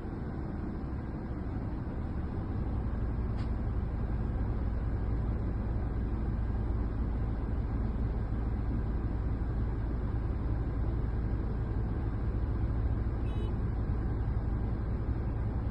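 Engine of heavy machinery running steadily with a low rumble that grows louder about two and a half seconds in.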